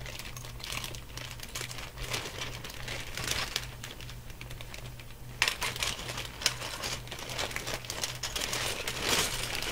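Hands going through loose plastic Lego pieces: a run of small plastic clicks and crinkly rustling, dropping off for about a second past the middle, then resuming with a couple of sharper clacks.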